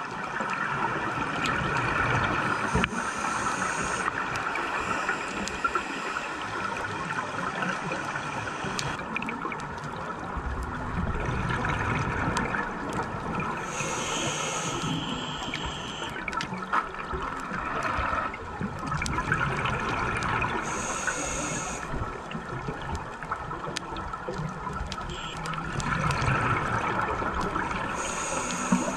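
Underwater ambience of a scuba dive: a steady watery rush with gurgling bubble sounds. Hissy bursts of exhaled bubbles from a diver's regulator come about every seven seconds.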